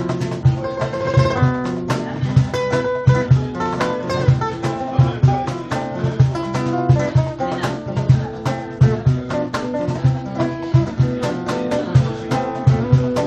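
Two nylon-string acoustic guitars playing a Cape Verdean piece together: a picked melody over chords, with a steady, rhythmic plucked bass line.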